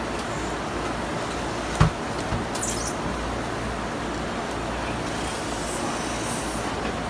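Steady background din at a fish counter, with one sharp knock a little under two seconds in and a brief high scrape just after, as a chef's knife and hand work a salmon fillet on a plastic cutting board.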